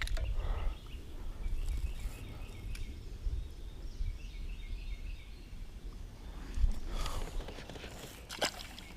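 Outdoor ambience: a steady low rumble, like wind on the microphone, with a bird chirping faintly in repeated short notes, and a couple of sharp clicks near the end.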